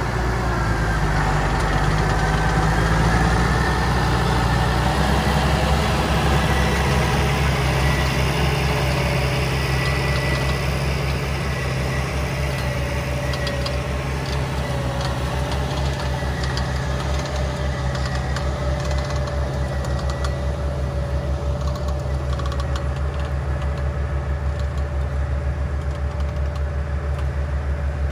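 Massey Ferguson 8130 tractor's diesel engine running steadily under load as it pulls a disc plough through the soil, with a steady whine over the engine note.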